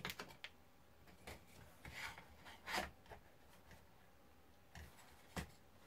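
Plastic case of a small solar charge controller being handled and pressed together: faint rubs and scrapes with a few light clicks, the sharpest click about five seconds in.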